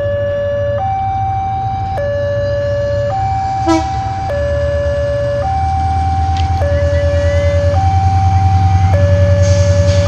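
A two-tone hi-lo siren alternates evenly between two pitches, changing about once a second. Under it a diesel locomotive's engine rumbles with a pulsing beat that grows louder toward the end as the locomotive approaches. There is a short click a little under four seconds in.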